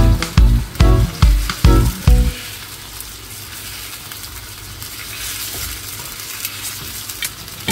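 Raw chicken drumsticks sizzling in hot oil with chopped onion in a frying pan, stirred with a spatula. Music with a steady beat plays over the first two seconds or so, then stops suddenly, leaving the steady sizzle.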